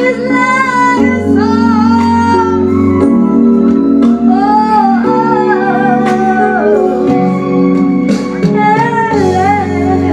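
A woman singing into a handheld microphone over an instrumental backing, her voice amplified and loud, with long held notes that waver with vibrato.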